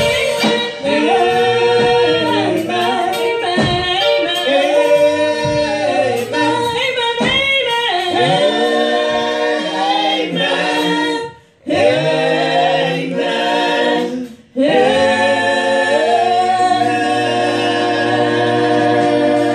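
Group of women singing a gospel song together in harmony into microphones, with two short breaks in the middle of the song.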